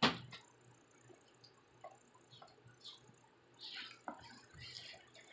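A sharp click, then scattered faint ticks and two brief rustles, like small objects being handled.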